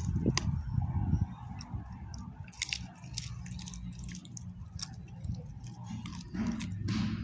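A beagle chewing and crunching on a raw chicken breast bone, with scattered sharp cracks of teeth on bone over a low rumble that is louder in the first second and again near the end.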